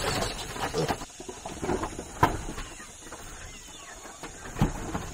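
Piglets squealing and grunting in short, irregular calls. Two sharp knocks come about two seconds in and again near the end.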